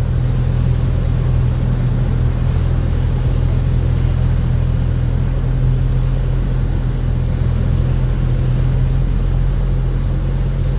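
Steady low drone of a vehicle's engine and road noise while driving, heard from inside the cab.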